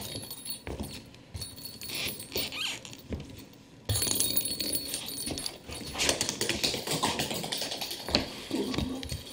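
Feet shuffling on a hardwood floor, then from about four seconds in a small plastic toy ball rattling and clicking as it rolls and bounces along the floorboards.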